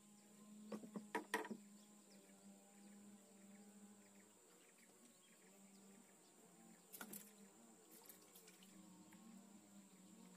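Near silence with a faint steady hum, broken by a quick run of sharp clicks and knocks about a second in and a few more around seven seconds, from the catch and fishing tackle being handled in the boat.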